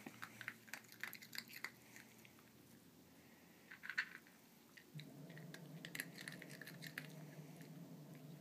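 Papillon eating kibble from a Nina Ottosson Dog Tornado puzzle feeder: faint scattered clicks and rattles of kibble and the plastic tiers as the dog noses them, with chewing. A steady low hum starts about halfway through.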